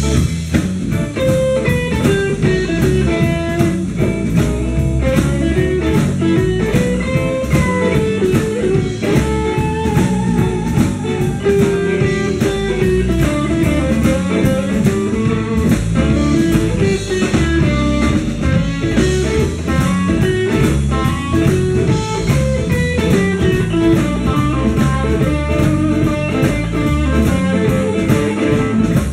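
Live blues band playing: electric guitar lines over a steady drum-kit beat.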